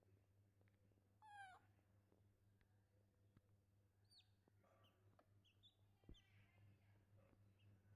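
Faint calls from a baby macaque and a chick: one short squealing call about a second and a half in, then a few brief high chirps from about halfway on, over a low steady hum.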